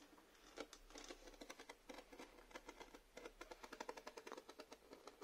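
Faint, irregular ticking and scratching, several a second, of a utility knife blade scoring tape laid on a plastic RC truck body.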